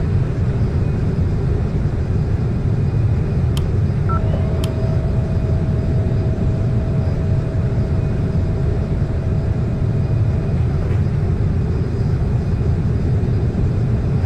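Steady low rumble of jet aircraft engine noise at an airport, unchanging throughout, with two faint clicks a few seconds in.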